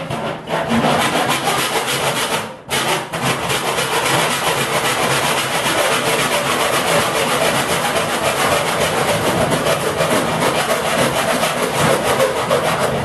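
Hilda die grinder with a friction cut-off disc cutting through the sheet-steel top of a filing cabinet: a loud, harsh, steady grinding that breaks off briefly about two and a half seconds in, then carries on.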